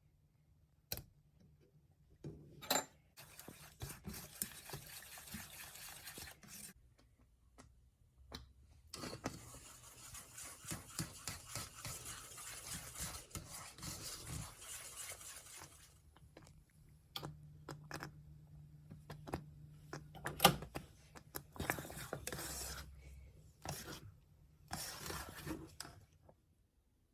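Rubbing and scraping against a pan or bowl, as in hand food preparation, in several stretches of a few seconds each, with scattered clicks and a sharp knock about two-thirds of the way through.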